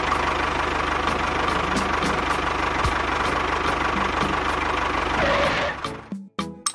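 A motor running steadily with a fast low rumbling pulse underneath, dying away about six seconds in.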